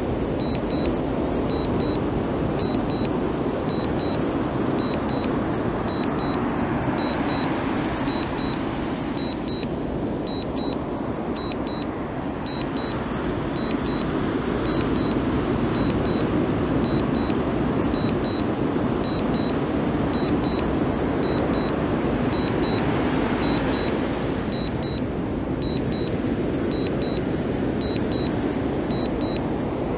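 DJI Mini 2 remote controller beeping in short high double beeps about once a second, the alert it sounds while the drone is returning to home. Under the beeps runs a louder, steady rushing noise.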